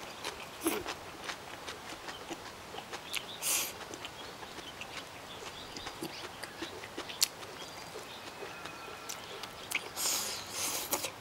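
A person eating from a bowl with chopsticks: chewing and mouth sounds with many sharp clicks of the chopsticks against the bowl, and a couple of short breathy bursts, one about three and a half seconds in and a longer one near the end.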